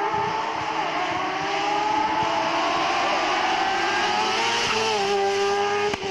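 Race car engine on a hillclimb run, revving hard through a bend: the pitch dips, then climbs steadily as it accelerates, then drops and holds near the end. The sound belongs to a small white single-seater buggy.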